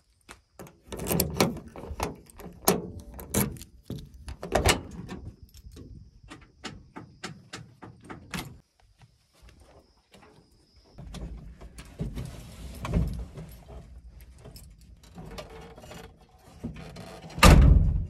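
Steel cab door of a Tata tipper truck: a string of sharp clicks and clunks as the door is unlatched and swung open, knocks and scraping as someone climbs up into the cab, then one heavy slam near the end as the door is shut.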